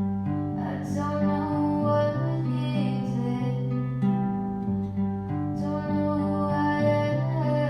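Background music: a song with guitar and other pitched instruments, possibly a voice.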